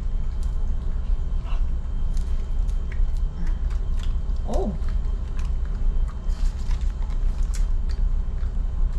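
Beagle chewing a dried horse-meat treat: scattered short crunching clicks over a steady low hum.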